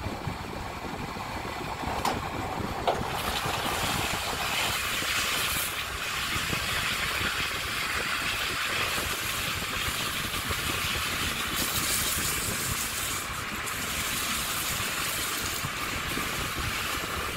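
Metal lathe running with a tie rod end spinning in its chuck while emery cloth is held against it to polish the part, making a steady hiss. There are a couple of clicks at first, and the hiss grows louder about three seconds in.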